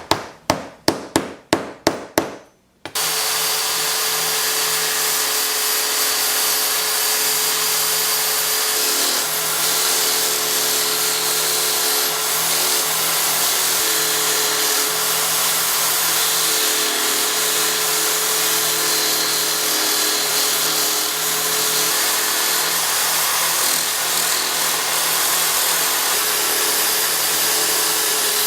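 A quick series of about eight sharp taps, likely a small plug being tapped into a purpleheart blank. About three seconds in, a wood lathe starts up and runs steadily with a hum and a loud hiss of a tool cutting the hard purpleheart wood.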